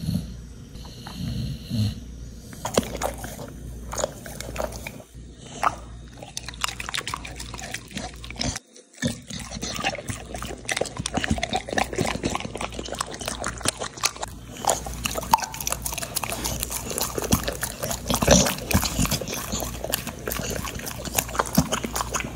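A dog crunching and chewing a baked dog biscuit, with wet lip-smacking, as quick irregular clicks that break off briefly about nine seconds in.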